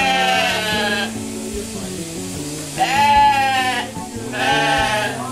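Sheep bleating loudly: three wavering calls, one at the start lasting about a second, then two more about three and four and a half seconds in.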